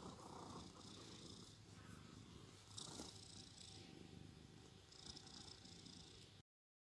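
Domestic cat snoring faintly in its sleep, three slow breaths about two and a half seconds apart; the sound cuts off suddenly near the end.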